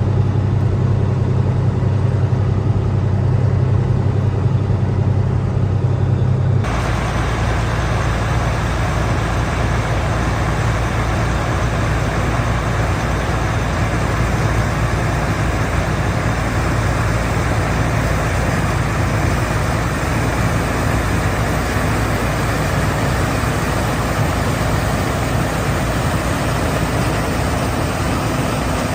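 Combine harvester running at work: first a steady low engine drone, then, about six seconds in, an abrupt change to a denser, rushing machine noise that runs steadily on.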